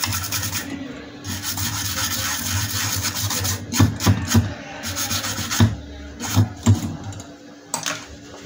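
The solder side of an inverter circuit board being scrubbed with a hand tool to clear off loose bits of solder: a steady scratchy rubbing, then several sharp knocks around the middle.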